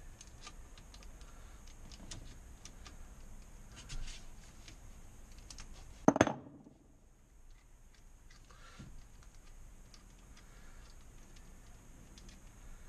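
Light metallic clicks and clinks of hand tools and loose fittings being worked at a boat engine's bronze impeller pump as it is taken off, with one sharp knock about six seconds in.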